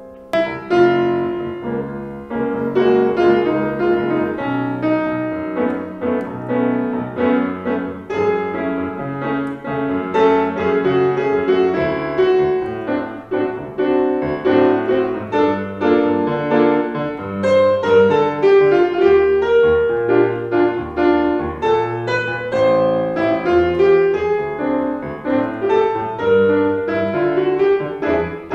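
Solo grand piano played continuously, a busy passage of many notes over a moving bass, entering strongly about half a second in.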